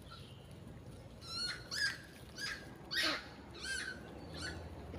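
Long-tailed macaques giving a run of short, high squeals, about six in a row, starting about a second in and loudest about three seconds in.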